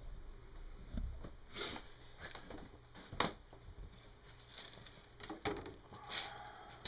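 Hands working a small snow chain onto an RC truck tire: a few light metallic clicks and scrapes of thin chain links, with a couple of short hissy rustles between them.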